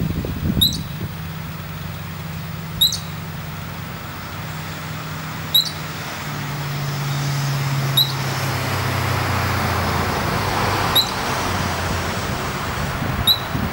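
California ground squirrel giving its alarm call: six short, sharp chirps, one every two to three seconds. Steady low traffic hum underneath, swelling in the middle as a vehicle passes.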